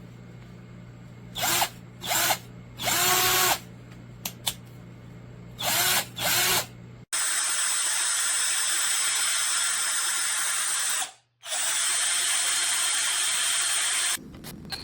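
12V cordless drill/driver motor run in five short trigger pulls, each spinning up with a rising whine. It then runs steadily for about four seconds, stops briefly, and runs steadily again for a few seconds.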